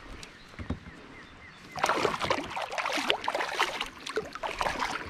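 A large hooked turtle thrashing at the water's surface right beside a kayak, splashing hard and irregularly. The splashing breaks out about two seconds in, after a quieter stretch.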